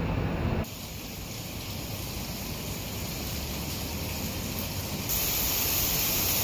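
Heavy rain pouring down with a steady hiss on leaves and pavement. A low rumble of street traffic cuts off within the first second, and about five seconds in the rain gets louder and hissier as a heavier downpour.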